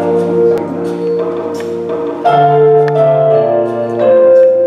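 Instrumental music of held, sustained chords that change about every second, with no singing yet.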